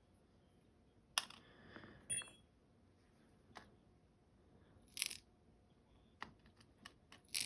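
Scattered small metallic clicks and clinks, about eight in all, of lock pins and parts being handled and set down while a euro cylinder lock is gutted.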